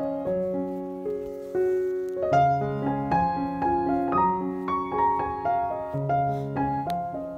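Background piano music: a melody of single notes changing every half second or so over longer held low notes.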